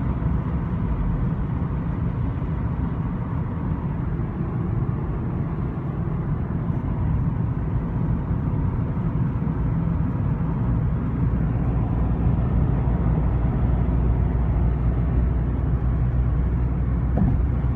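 Steady road and drivetrain rumble inside the cabin of a moving 2014 VW Golf Mk7 GTI, with a faint rattle from a door. The owner finds the rattle stops when the door window is lowered a tiny bit, which points to the window glass.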